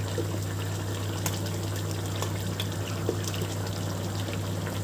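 Prawn curry in coconut milk boiling in a pan: a steady bubbling hiss with small scattered pops, over a steady low hum.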